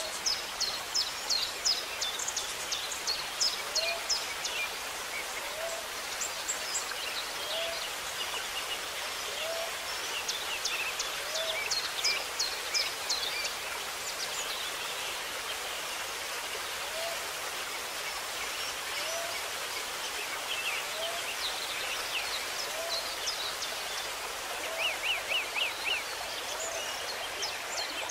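Several birds singing over a steady hiss: runs of quick, high-pitched notes come and go, while a low, short call repeats about once a second through the middle, and a quick series of mid-pitched notes comes near the end.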